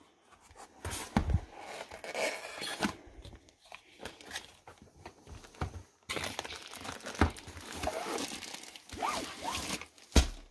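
A diamond painting kit's box being opened and unpacked by hand: packaging rustling, crinkling and tearing in irregular spells, with scattered clicks and a thump near the end.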